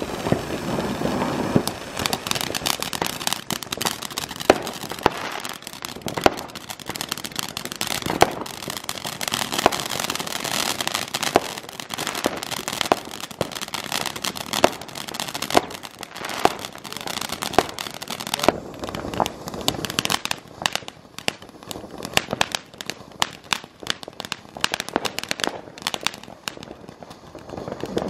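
Ground fountain fireworks hissing as they spray sparks, with many sharp crackles and pops. About two-thirds of the way through the hiss thins, leaving scattered crackling.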